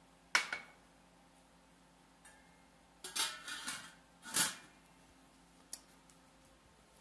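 Kitchenware being handled: a sharp clack, then a short clatter of knocks about three seconds in and another clack soon after, over a faint steady hum.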